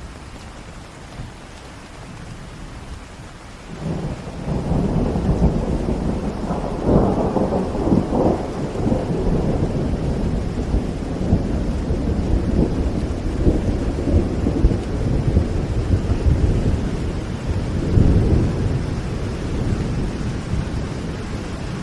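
Steady rain, then a long roll of thunder that starts about four seconds in and rumbles on under the rain, with its loudest cracks a few seconds after it begins.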